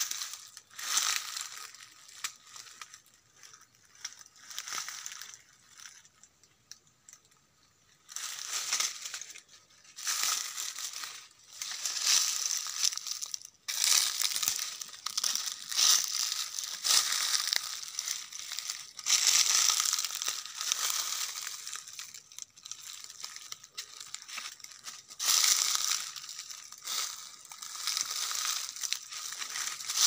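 Footsteps crunching and crackling through dry leaf litter, in irregular bursts that stop for a short pause about six seconds in.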